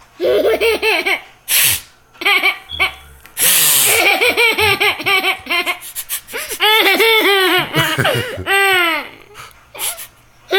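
A baby laughing in repeated high-pitched giggling bursts, broken by short sharp sniffs, the strongest about three and a half seconds in.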